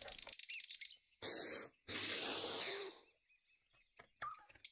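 Hand blender with a chopper attachment run in two short pulses, the second longer, chopping bell pepper, garlic and hot pepper, followed by a few brief high chirps.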